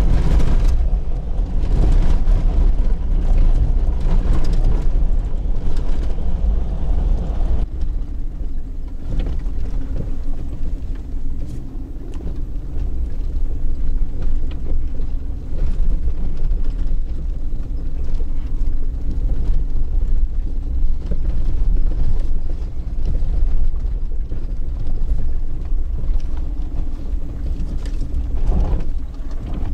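Car driving, a continuous low rumble of engine and tyres. About eight seconds in the sound turns duller and a steady engine hum comes through.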